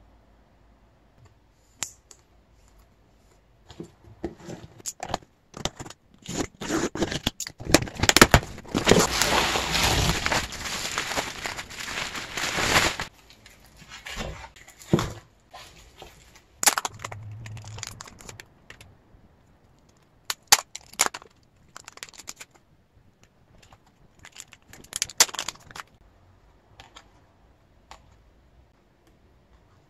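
Hands handling album packaging and photocards: scattered short rustles and taps, with a dense stretch of rustling for about five seconds starting about eight seconds in.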